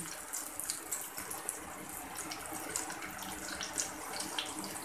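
Battered egg pakoras deep-frying in hot oil, the oil sizzling steadily with scattered small crackles and pops.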